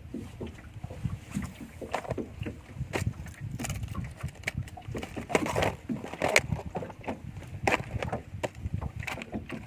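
Water slapping and knocking irregularly against the hull of a small fishing boat, over a low rumbling background.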